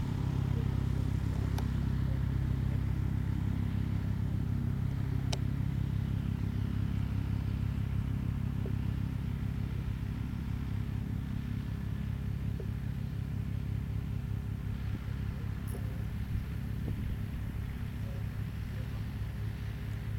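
Rotortec Cloud Dancer II ultralight helicopter running steadily: a Weber engine's low drone with the rapid pulsing of its main rotor turning, easing off slightly toward the end.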